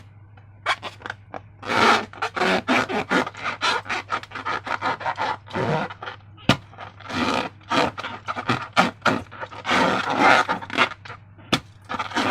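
Hands working slime and balloons: a busy run of short rubbing, scraping and crackling noises, one after another, with brief pauses.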